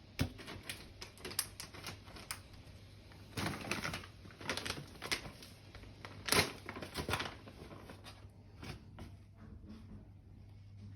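Dog crunching and chewing hard treats: irregular crisp crunches and clicks, loudest in clusters about three and a half and six and a half seconds in.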